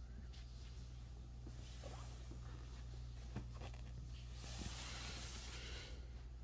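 A hand rustling and sliding over a cotton bedspread while picking up a hair tie, with a louder brush of fabric about four and a half seconds in. A steady low electrical hum lies underneath.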